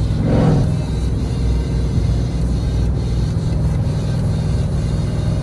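Jeep Grand Cherokee Trackhawk's supercharged Hemi V8 through a Gthaus valved cat-back exhaust, heard from inside the cabin while cruising: a steady low exhaust drone, with a brief swell in revs about half a second in.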